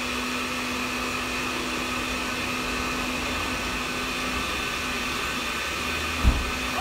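Countertop blender with a glass jar running steadily at speed, blending an ají and fresh-cheese sauce. A single thump sounds about six seconds in.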